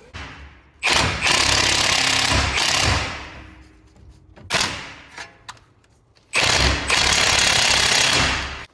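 Impact wrench hammering in two runs of about two seconds each, with a short burst between them; the second run stops abruptly.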